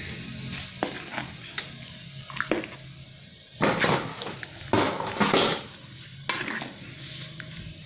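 Metal spatula stirring chunks of boiled beef into a wok of thick coconut-milk sauce: wet sloshing and scraping against the pan, with a few light taps at first and several louder strokes from about halfway in.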